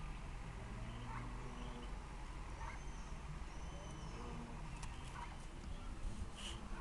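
Mallard hen and ducklings calling: short, faint calls about every second and a half over a steady low background, with one sharper, higher call near the end.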